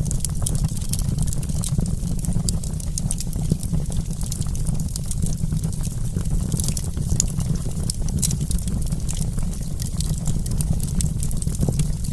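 Campfire burning, with a steady low rumble of flames and frequent sharp crackles and pops of burning wood.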